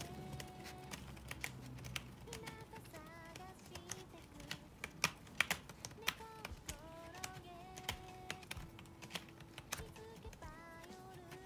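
Irregular sharp clicks and scrapes as a tortoiseshell cat paws and noses at a round corrugated-cardboard scratcher, its claws ticking on the cardboard, with a cluster of louder clicks about five seconds in. Soft background music of held, stepping melody notes plays underneath.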